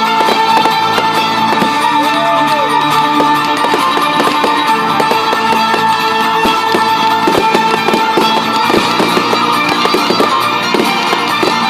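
Music from a fireworks show's sound system, guitar and strings, with firework bangs and crackles going off throughout, and a short whistle rising and falling about two seconds in.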